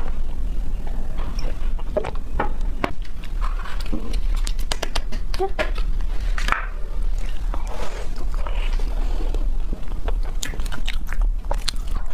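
Close-miked drinking, plastic handling and chewing sounds: a run of sharp clicks and crackles over a steady low hum.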